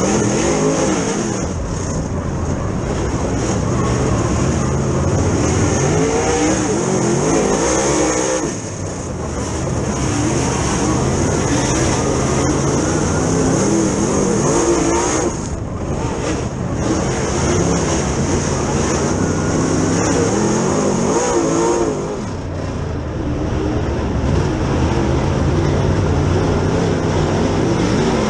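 A Super Late Model dirt race car's V8 engine at full racing speed, heard from inside its own cockpit. The engine revs up and falls away again several times as the car goes around the track, with other race cars running close by.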